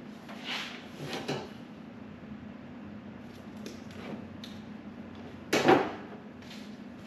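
Work-bench handling noises while working on the truck's wiring: scattered clicks and rustles, with one louder knock about five and a half seconds in, over a steady low hum.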